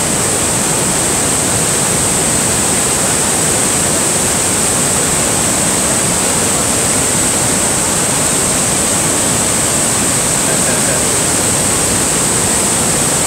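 Niagara Falls rushing, a loud, steady and unbroken roar of falling water close at hand, with water churning over the rocks below.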